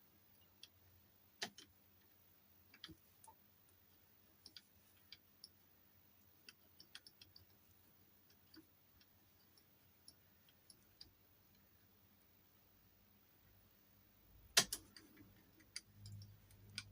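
Sparse, faint metallic clicks and ticks of a lock pick working the levers inside an SMP 7-lever dual stump safe lock, with one louder click near the end.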